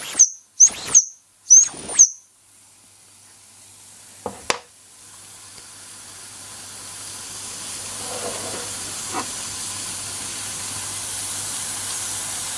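Mamod SE3 toy steam engine's boiler whistle blown in three short, high toots in quick succession, each sliding up in pitch and back down as the valve opens and closes. About four seconds in come two sharp knocks, then a steady steam hiss that slowly grows louder: steam escaping past the worn washer on the safety valve.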